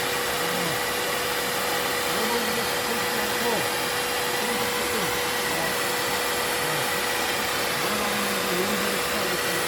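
Vacuum cleaner running steadily, a constant rushing noise with a steady whine.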